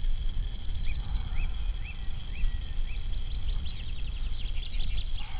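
Wind rumbling on the microphone, with a steady faint high tone. Over it a bird gives five short arched whistled chirps about half a second apart, then a fast run of short high notes near the end.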